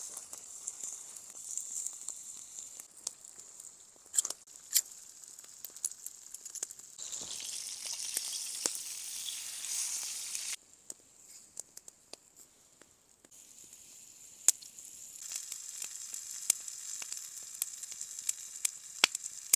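Food frying and sizzling over a campfire, with sharp pops and crackles throughout. The sizzle stops suddenly about ten seconds in and comes back a few seconds later.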